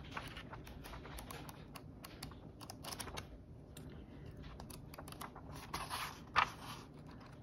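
Paper pages of a Traveler's Notebook diary insert being turned one after another: light rustles and soft ticks of the page edges, with one louder rustle a little past six seconds in.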